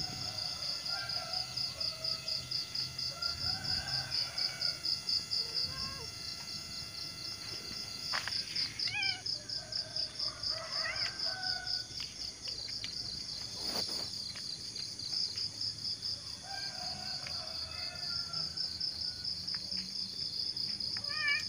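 Insects trilling outdoors in a steady, rapid, even pulse, with birds chirping now and then.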